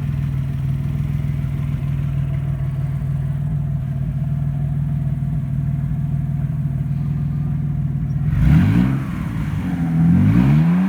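Audi 2.8 V6 engine running at a steady idle, then revved twice near the end, its pitch rising on each rev.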